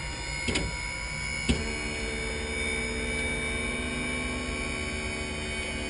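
A switch clicks about a second and a half in, and then the Enstrom F28F helicopter's electric fuel boost pump runs with a steady hum, priming the fuel system for engine start.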